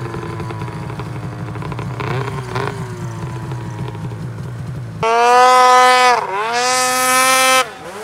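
Snowmobile engine running at low revs with a couple of quick throttle blips about two seconds in. About five seconds in the engine is opened up hard and revs loud and high. Its pitch climbs, dips once, climbs again, then drops away near the end.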